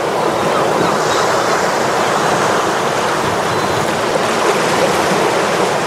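Steady rushing water noise, like surf washing on a shore, without breaks or distinct events.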